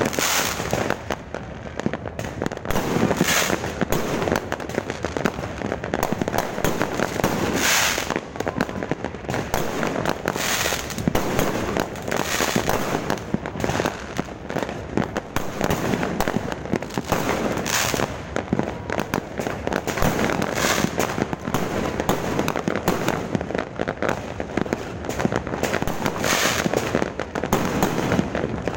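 Fireworks going off without pause: a dense crackle of bangs, with louder bursts every couple of seconds.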